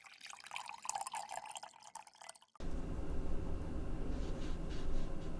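Quick wet clicks and crackles, as of spicy maratang soup and its ingredients, which stop abruptly about two and a half seconds in. A steady low hum follows, with a few faint soft ticks.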